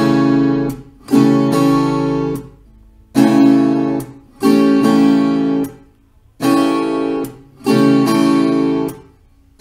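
Viola caipira strummed slowly in the cururu rhythm: a rolled downstroke with the fingertips, then an upstroke with the thumbpick. Each chord is cut short by a palm mute, so six chord strokes ring about a second each with silent gaps between.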